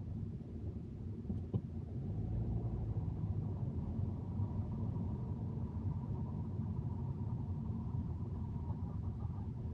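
Car road and engine noise heard from inside the moving car: a steady low rumble that gets louder about two seconds in. A single short click comes about a second and a half in.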